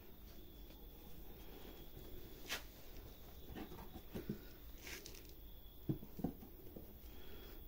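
Quiet handling sounds of kittens and a hand moving on fabric bedding: soft rustling, a sharp click about two and a half seconds in, and two soft thumps about six seconds in.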